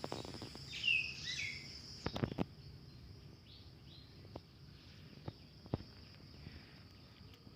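Outdoor ambience after rain: a steady high-pitched insect drone, with a few short bird chirps about a second in and scattered faint clicks and knocks.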